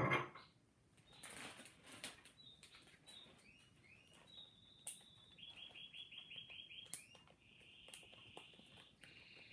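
A songbird singing in the background: a few chirps, then a quick trill of about eight repeated notes and a buzzy phrase. Under it, soft plastic rustling and handling noises, and a brief loud noise right at the start.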